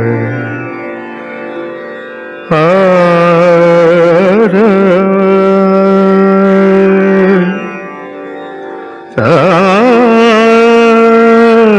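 Indian classical-style film song introduction: long, ornamented held notes that waver and bend in pitch over a steady drone, with two phrases entering sharply about two and a half seconds and nine seconds in.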